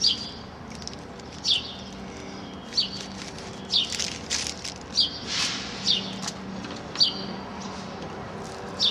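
A small bird chirping over and over: about eight short, falling chirps, roughly one a second. A brief rustle of paper comes near the middle as the gold-leaf packets are handled.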